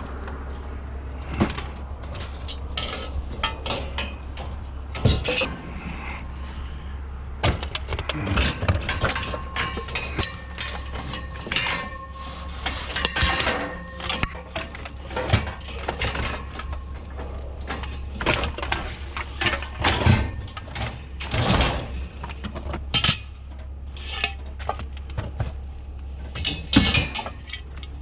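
Pieces of scrap metal being handled and shifted, clanking and clinking many times, some strikes leaving a short metallic ring, over a steady low hum.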